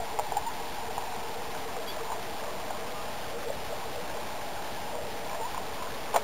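H0-scale model train rolling along the track: a steady rolling noise with small crackles, and a sharp click at the start and another near the end.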